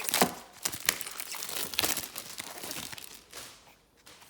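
Plastic wrapping crinkling and tearing as a trading-card hobby box is unwrapped, an irregular run of crackles that dies down near the end.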